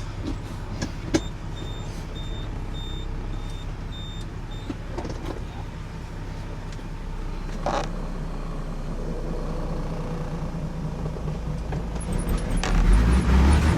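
Heavily loaded truck's engine labouring up a steep hill, a steady low drone that grows much louder about a second before the end as the engine works harder. A faint high beeping comes and goes early on and again near the end.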